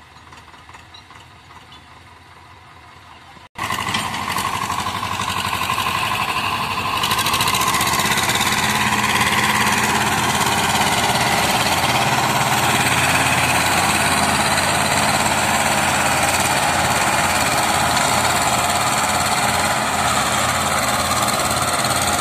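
Swaraj tractor diesel engines running hard under load while one tractor tows a stuck tractor and loaded trailer out of the mud. The engine sound starts suddenly about three and a half seconds in, after a quieter stretch, and then stays loud and steady.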